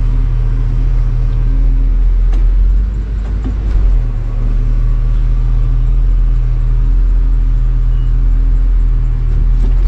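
The motorhome's 7.4-litre 454 big-block V8 on its Chevy P30 chassis running steadily at low revs, heard from inside the cab, with a brief dip in loudness a few seconds in.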